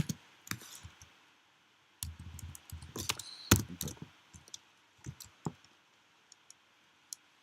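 Computer keyboard typing: irregular bursts of keystrokes, thinning out to a few scattered clicks near the end.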